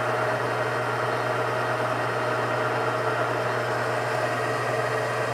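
Precision Matthews metal lathe running steadily, its spindle spinning a 5C collet chuck while a turning tool cuts the workpiece: an even machine hum with a steady whine.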